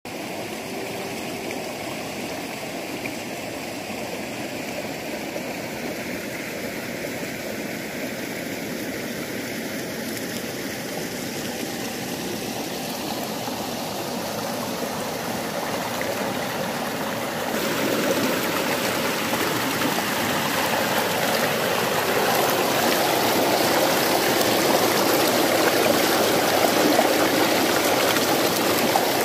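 Water rushing steadily along a stream channel, louder and harsher from about two-thirds of the way in, where it pours fast down the narrow chute (millrace) that feeds a water mill.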